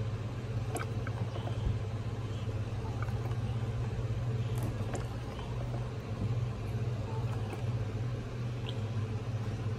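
Steady low hum with a few faint scattered clicks.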